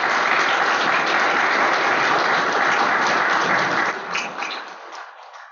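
Audience applauding, loud and steady, then dying away over the last second and a half.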